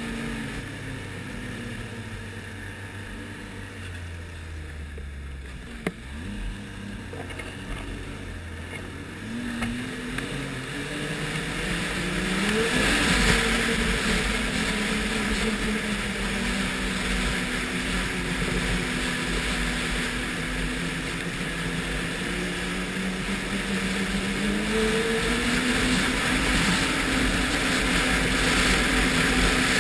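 Ski-Doo Renegade 1200 snowmobile's four-stroke three-cylinder engine running at low speed, then accelerating from about ten seconds in and holding a steady higher pitch, rising again slightly later on. Wind rushes over the helmet microphone, growing as the sled picks up speed.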